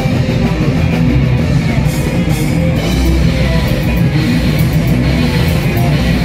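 Heavy metal played live: a distorted headless extended-range electric guitar riffing with a drum kit, loud and continuous.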